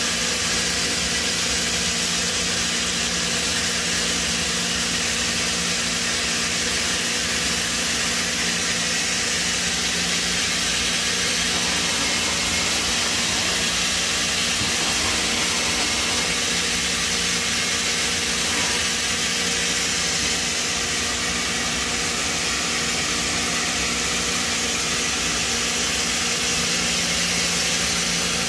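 Steady machine hum with a constant hiss from a powered-on Mazak Integrex 100-IV ST CNC turn-mill lathe running idle, with no cutting or sudden sounds.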